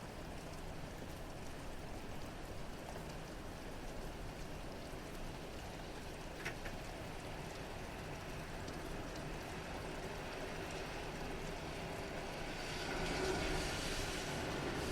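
Steady rain falling, with a single drip-like tick about halfway. Near the end a car's tyres on the wet road come in as a rising hiss as it approaches.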